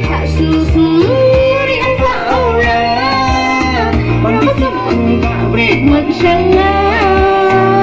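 A young woman singing a song into a microphone over instrumental accompaniment with a steady, repeating bass line.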